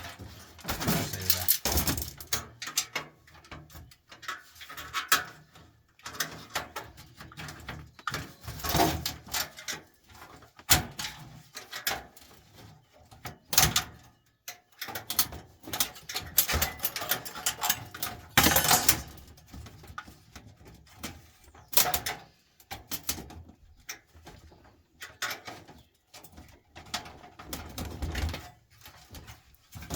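Irregular clicks, knocks and scraping of metal as a screwdriver and hands work at a desktop computer's case, trying to free a stuck part, with a few louder knocks along the way.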